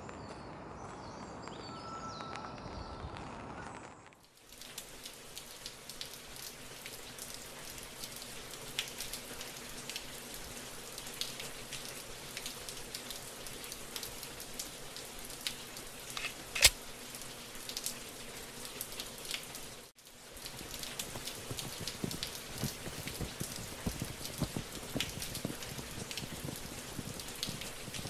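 Steady rain pattering, an even hiss dotted with fine drop ticks, with one sharper click about two-thirds through. For the first four seconds a different, quieter ambience plays, and the rain drops out for a moment about twenty seconds in.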